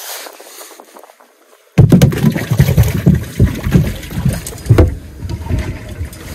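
Wind buffeting the microphone on an open boat: a loud, gusting low rumble that starts abruptly about two seconds in, with a few sharp clicks.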